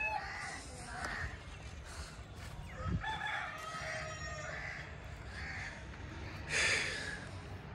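Rooster crowing: one drawn-out crow about three seconds in, with the tail of an earlier crow just at the start.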